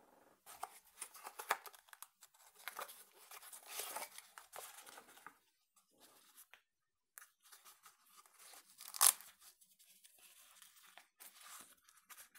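Cardboard box and black fabric sheath of a folding multi-tool being handled and opened by hand. A run of rasping, scraping and tearing noises fills the first five seconds, then come scattered rustles with one sharp, loud rip about nine seconds in.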